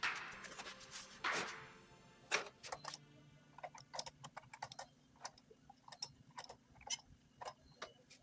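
Irregular light clicks and taps of metal hand tools on engine parts, a few scattered through each second, with a couple of brief swishes near the start.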